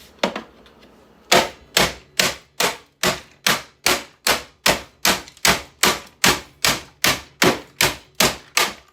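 Steady blows on a boombox as it is smashed apart: one knock, then about nineteen hard, evenly spaced strikes at a little over two a second, each ringing briefly.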